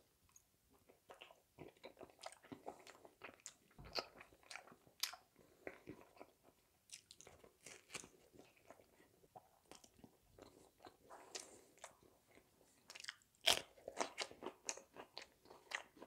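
A person biting and chewing food close to the microphone: quiet, irregular small crunches and mouth clicks, with a louder bite about three-quarters of the way through.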